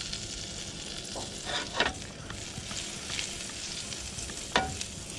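Garlic, chili and rosemary sizzling in melted butter in a frying pan on a portable gas stove, a steady frying hiss. A few short clinks and scrapes sound as the pan is shifted and lifted on the burner grate, the loudest near the end.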